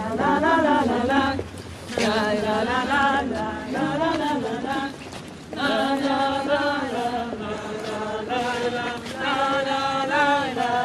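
Voices singing unaccompanied, in held sung phrases broken by short pauses about a second and a half in and again around five seconds in.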